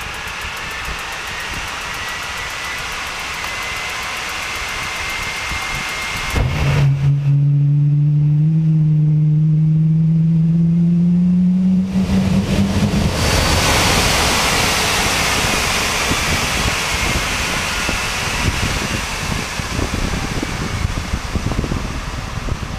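Fairchild J44 turbojet on a start attempt: a rising whine as it spools up, then about six seconds in a loud low drone that climbs slowly in pitch as it lights off. From about halfway it gives way to a steady rush of air that slowly fades as the engine winds down.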